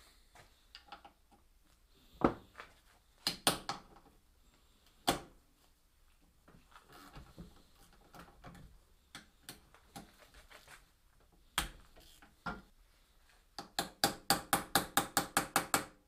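Hand tools on a metal engine part held in a bench vise: scattered metal clicks and knocks as a socket on an extension is fitted and worked, then near the end a quick, even run of about a dozen clicks.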